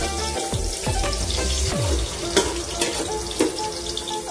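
Chopped garlic frying in hot cooking oil in an aluminium pot as it turns brownish, a steady sizzling hiss. Three sharp clicks come a little past halfway.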